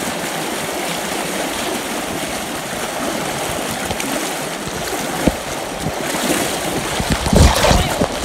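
Fast river water rushing and splashing close to the microphone. Near the end the splashing gets louder, with rough low thumps as water buffets the microphone.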